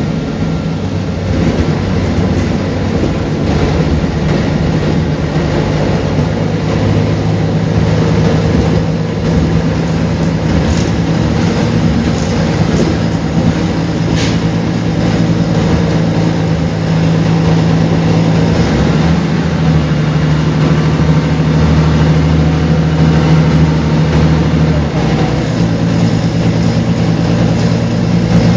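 Mercedes-Benz O405GN articulated city bus's engine running, a steady low drone whose note changes about two-thirds of the way through and again near the end.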